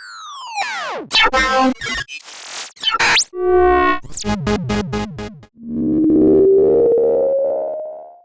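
A run of short synthesized sci-fi sound effects: falling electronic sweeps, buzzy zaps, a burst of noise and a rapid pulsing clatter. Then a warbling electronic tone swells up, drifts upward in pitch over about two and a half seconds, and fades away.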